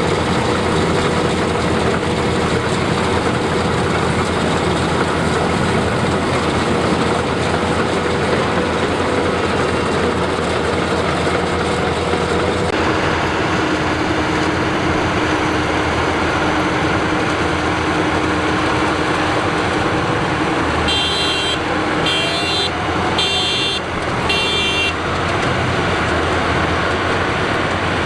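Combine harvester running steadily at working speed, its machinery droning loudly; its pitch drops a little about halfway through. Near the end, four short electronic beeps sound over the engine.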